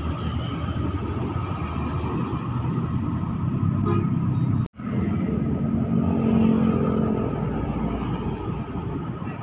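Road traffic with light diesel trucks passing close by: a continuous engine rumble with tyre noise, swelling as a truck goes by in the second half. The sound cuts out for an instant about halfway through.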